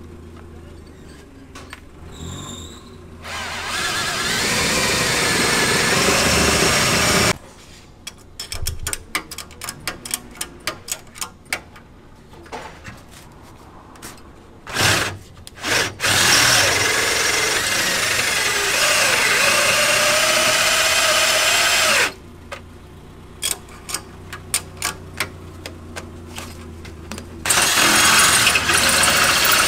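Power drill boring up through the motorhome's steel chassis rail in three long runs of several seconds each, with sharp metallic clicks and clinks between the runs.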